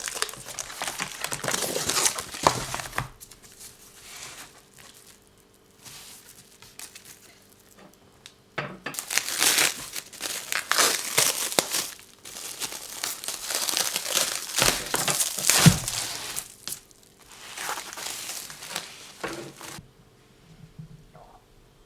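Packaging wrapping crinkling and tearing as it is handled and pulled open, in several bouts of a few seconds each with quieter pauses between.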